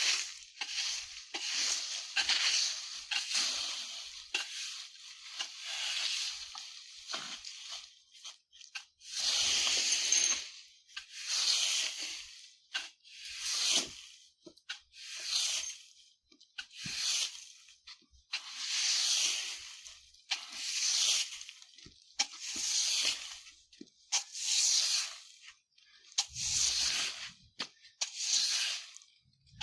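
Broom sweeping dry leaves over the ground: close, crackling rustle. It starts as a dense, almost unbroken scrubbing, then settles into separate sweeping strokes about one every second and a half.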